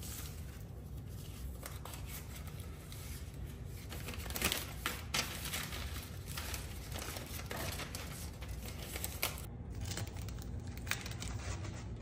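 Rustling and crinkling as packaging is handled, with a few sharp clicks, the loudest about four and a half seconds in.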